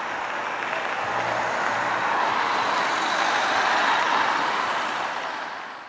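Street traffic: a steady rush of road noise from passing cars, swelling as a car goes by close about three to four seconds in, then fading out.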